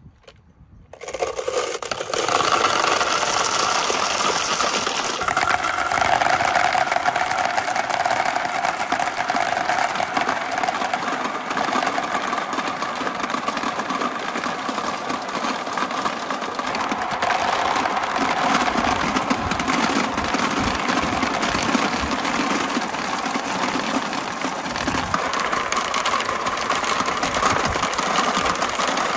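Dozens of glass marbles poured from a jar, clattering down a plastic chute and rolling round a large white funnel in a dense, continuous rattle and rumble that starts about a second in.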